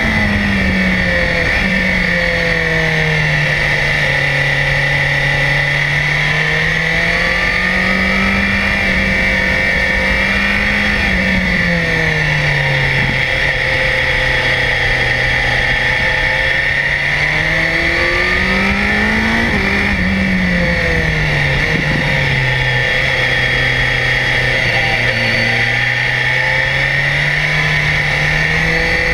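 BMW S1000XR's 999 cc inline-four engine running under load, its note rising and falling several times as the throttle opens and closes through bends, with a couple of sharp drops in revs. A steady rush of wind and road noise runs underneath.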